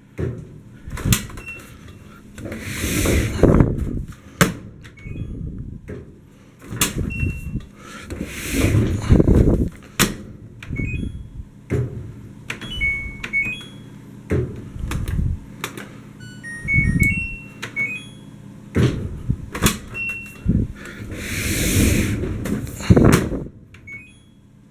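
LG DLG2526W dryer drum being spun by hand in repeated swells of rumbling, broken up by clicks and knocks, with short electronic beeps now and then from the control panel as start is pressed. These are attempts to help a drive motor that won't start on its own; the owner wonders whether the motor, relay, belt or rollers are at fault.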